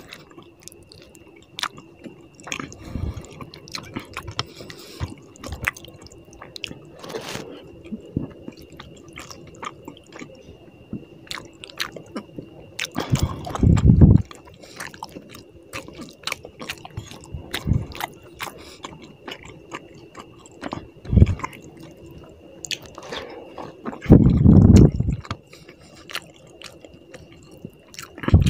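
Fingers squishing and kneading rice with tilapia fish curry on a plate, with wet squelches, small clicks and chewing, heard close up. A few louder low thuds stand out, the loudest about halfway through and again about three-quarters through.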